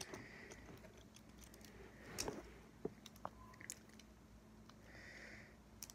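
Faint clicks and handling noises of small plastic toy parts: a missile launcher being pushed into its hole on a G1 Transformers Smokescreen figure. A few sharp clicks fall about two to four seconds in.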